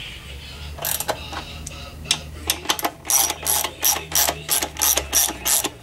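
Hand ratchet wrench clicking as it turns bolts, a few scattered clicks at first and then a quick even run of about three to four clicks a second, snugging the bolts of a Corvair oil pan.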